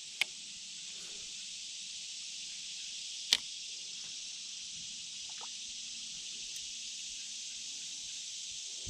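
A steady high-pitched hiss with two sharp clicks, one right at the start and a louder one about three seconds in.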